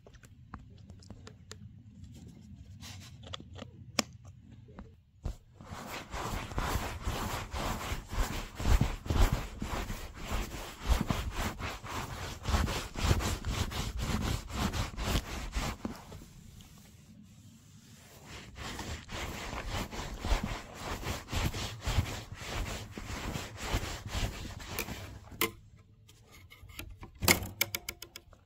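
A cloth rubbing cream into a Citroën 2CV's black soft-top roof: dense, scratchy scuffing that starts about five seconds in, runs in two long stretches with a short pause between, and ends in a few clicks.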